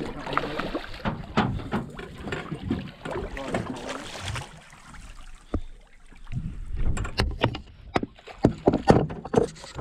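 Knocks and bumps on a small fishing boat, over a steady rushing noise for the first few seconds; a cluster of sharper knocks comes near the end.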